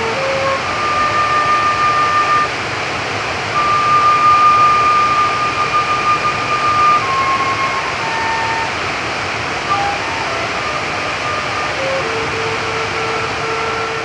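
Transverse flute playing slow, long held notes, high in the first half, then stepping down to lower repeated notes near the end, over the steady rush of a stream.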